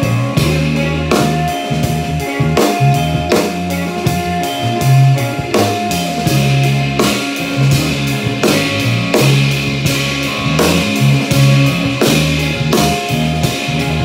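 Electric guitar and drum kit playing a song together: sustained guitar chords over regular drum and cymbal strikes.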